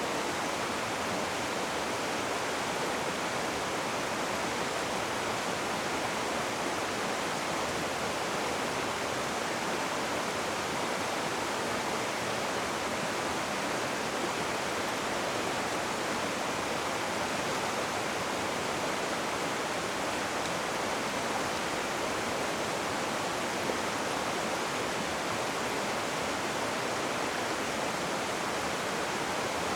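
Rushing river water: a steady, even rush with no change throughout.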